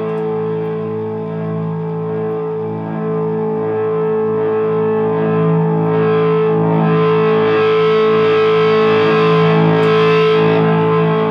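Telecaster through effects pedals and a Dr Z Cure tube amp: a held, distorted chord drones on at one steady pitch with no new notes picked. About six seconds in it swells louder and brighter as a pedal knob is turned.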